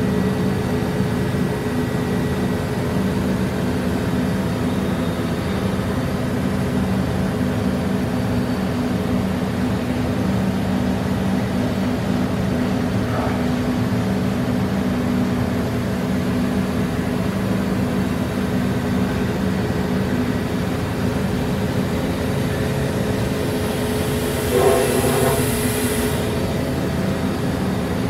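2003 Haas Mini Mill CNC vertical machining center running with a steady hum of several low tones. Near the end there is a brief hiss with a wavering higher tone.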